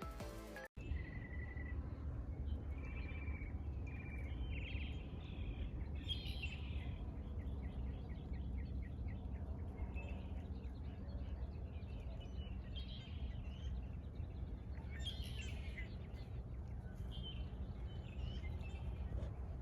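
Songbirds chirping and singing, several short calls and warbled phrases coming and going, over a steady low rumble of outdoor background noise. A burst of background music cuts off under a second in.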